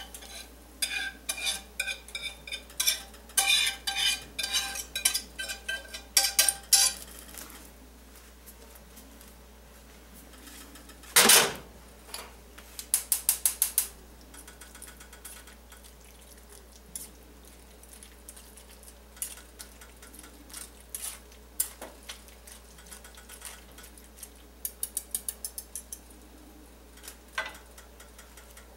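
Metal kitchenware clinking and scraping as pan gravy is poured and worked through a metal strainer. There is one loud clank about eleven seconds in, and twice a quick run of rapid taps against metal.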